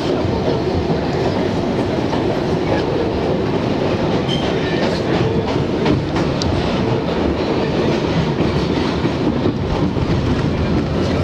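R62 subway car running steadily through the tunnel, heard from inside the car: a continuous loud noise of wheels on rails, with a few faint clicks.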